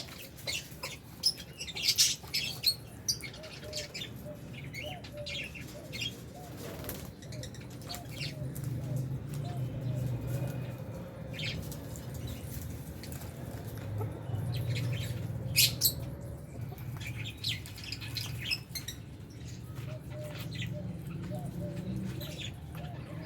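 A flock of lovebirds and budgies chirping in short, high, sharp calls, with fluttering wings, over a low steady hum.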